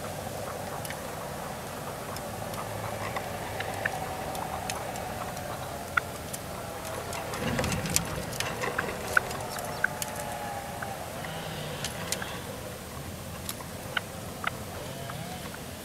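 Red-legged partridges calling softly at the decoy's cage, a low wavering chatter, with many scattered sharp clicks.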